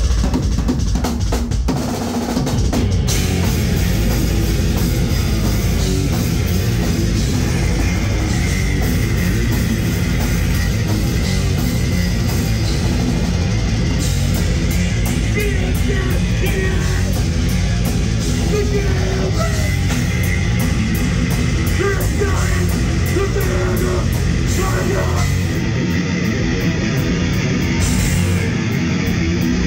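Grindcore band playing live at full volume: heavily distorted electric guitars and pounding drums, with harsh vocals in places.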